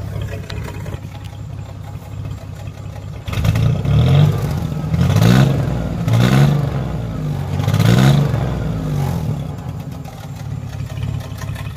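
1994 Chevrolet S10 Blazer's 4.3 L CPI V6 running through its true dual glass-pack exhaust. It idles, then from about three seconds in is revved four times, each blip rising and falling back. The engine has a dead miss on one bank and is cutting up, which the owner puts down to the new spider injector or a bad plug, wire or ignition coil on that side.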